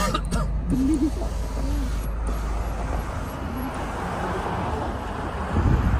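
Car moving slowly, with a steady engine and road rumble. In the second half a rushing road and air noise grows louder through the open side window. A low thump near the end is the loudest moment.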